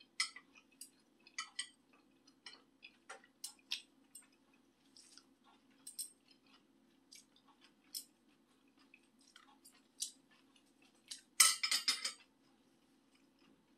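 Close-up eating sounds of a person chewing soft tofu: small wet mouth clicks and smacks, scattered irregularly, with a louder quick run of clicks and clinks about eleven seconds in. A faint steady hum runs underneath.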